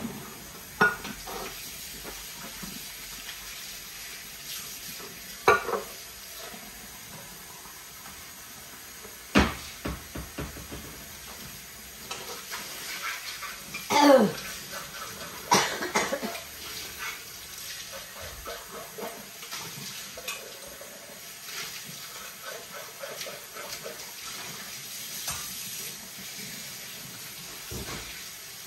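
Steady running water, with sharp clatters of kitchenware every few seconds; the loudest, about fourteen seconds in, rings with a falling tone.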